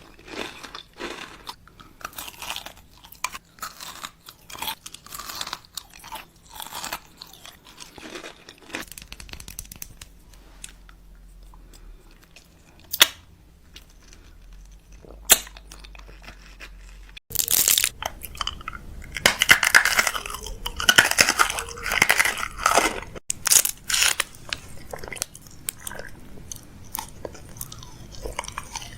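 Close-miked chewing and crunching of crisp food: many short, sharp crunches. The crunching becomes louder and denser from about seventeen seconds in.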